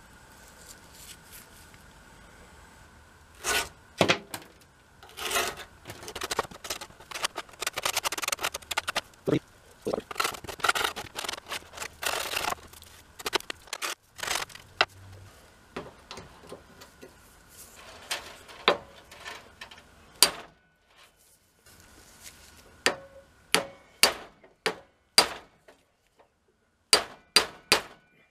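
Clanks, knocks and scrapes of rusty metal fireplace-screen parts being handled and taken apart, with a busy stretch of rattling and scraping in the first half and then scattered single clanks, several sharp ones near the end.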